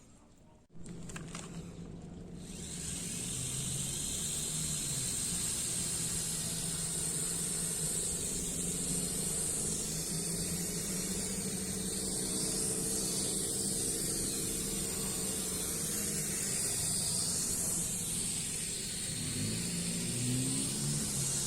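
JJRC H33 mini quadcopter's four small motors and propellers whirring steadily with a high whine, starting about a second in. The pitch wavers near the end as the throttle changes.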